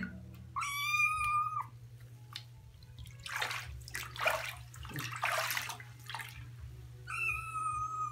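Chinchilla/Himalayan kitten meowing twice, a long high meow about half a second in and another near the end, with water splashing in the bathtub in between.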